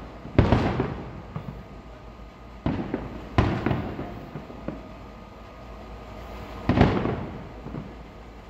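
Aerial fireworks shells bursting overhead: four sharp bangs a few seconds apart, each trailing off over about a second. The loudest comes about half a second in and another near the end.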